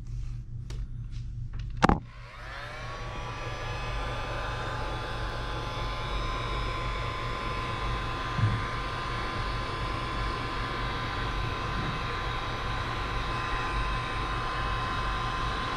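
A few clicks, then a hot-air blower switched on with a click about two seconds in, its fan rising in pitch as it spins up and then running steadily with a steady whine. It is heating the adhesive around an Apple Watch screen to loosen it.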